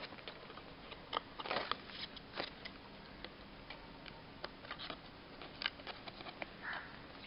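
Light, scattered clicks and rustles of fingers untwisting a thin wire twist-tie that holds a toy figure to its cardboard backing.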